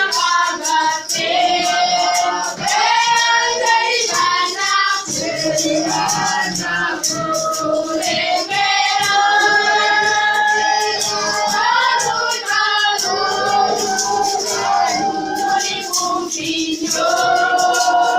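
A choir singing a gospel song in several voices, with percussion clicking through it.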